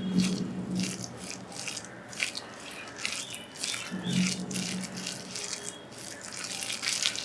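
Hands mixing chopped onion, green chillies, coriander and spice powders into coarse red-lentil (masoor dal) paste in a ceramic bowl: a run of quick, irregular wet squishing and crunchy rustling. A low hum swells briefly at the start and again about four seconds in.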